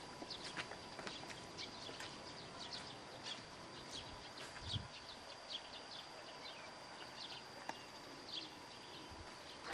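Faint open-field ambience: a low hiss with many small, irregular chirps and ticks scattered through it, over a faint steady high tone, and one soft low thump about five seconds in.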